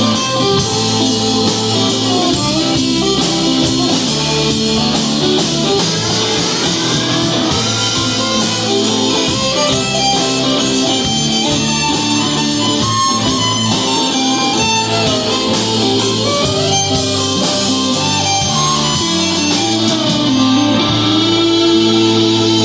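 Live band playing an instrumental break: a lead instrument sliding and bending notes over guitar chords and a steady beat.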